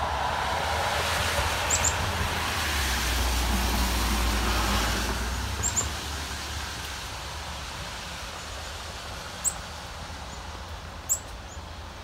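A vehicle passes on a nearby road, its noise swelling over the first few seconds and then fading. A few short, high bird chirps come through, the last two near the end the sharpest.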